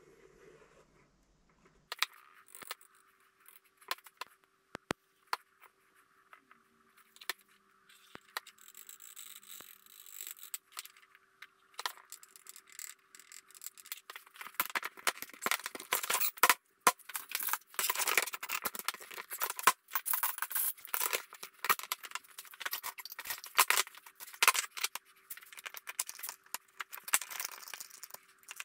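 Wood strips and steel bar clamps being handled on a workbench during a glue-up: scattered clicks and knocks at first, then a busy run of scraping and metallic rattling from about halfway through. A faint steady hum runs underneath.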